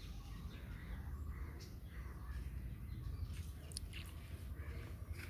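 Outdoor ambience: a steady low rumble with a few faint, short bird calls.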